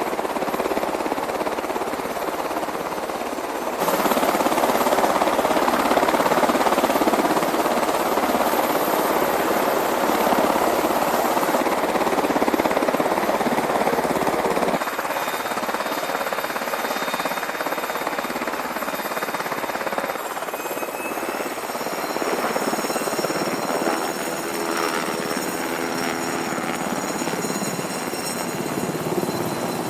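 UH-60 Black Hawk helicopter running, its twin turboshaft engines and rotor blades making a loud, steady chop. The level jumps up about four seconds in and drops back about halfway through. In the last third, a steady high turbine whine and lower rotor tones come in as a Black Hawk flies close by.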